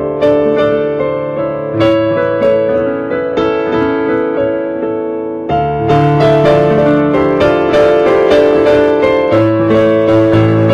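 Piano playing slow sustained chords, with a new chord struck about two seconds in and another about five and a half seconds in, followed by quicker notes over the held harmony.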